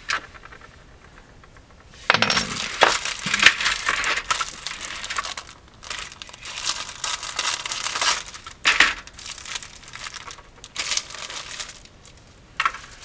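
A clear plastic bag of model-kit sprues crinkling and crackling in irregular loud bursts as it is cut open and the plastic sprue is pulled out, starting about two seconds in. A single light click at the very start.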